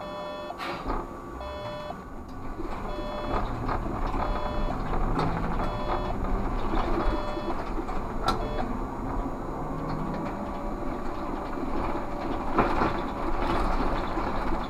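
Electronic beeping in the cab of a Škoda 30Tr SOR trolleybus, about one beep a second, stopping about eight seconds in. The trolleybus's running and road noise go on under it, with one sharp knock just after the beeping ends.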